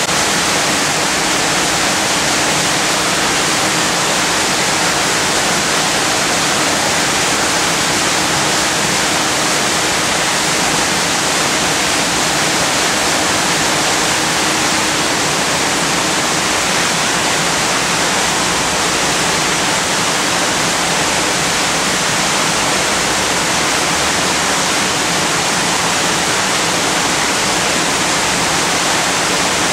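Loud, steady rushing noise like falling water, even throughout, with a faint low hum underneath that fades out about halfway through.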